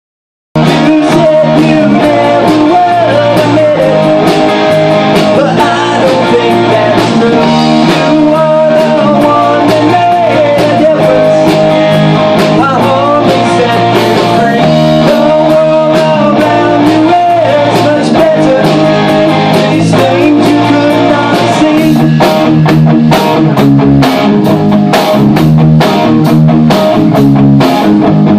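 Live rock band playing loud: an electric guitar line over bass guitar and drums, with the drums hitting harder from about 22 seconds in.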